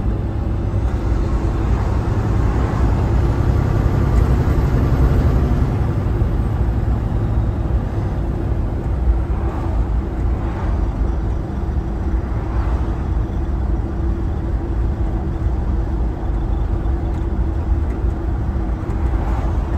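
Steady drone of a Kenworth T680 semi truck's diesel engine and road noise, heard inside the cab while cruising.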